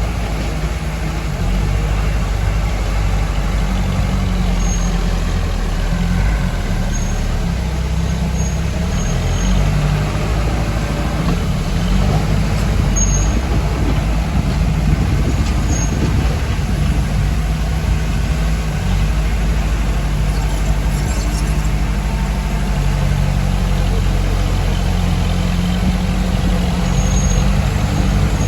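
Diesel engines of heavy earthmoving machinery, a bulldozer working with dump trucks, running steadily under load with a low rumble whose pitch shifts a little.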